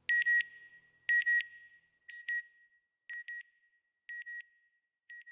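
Electronic double beeps: two short, high-pitched tones close together, repeating about once a second, six times, each pair fainter than the one before.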